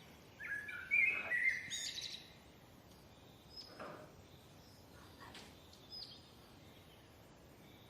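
Birds chirping: a cluster of short, sliding high calls in the first two seconds, then a few scattered single chirps, faint against a quiet background.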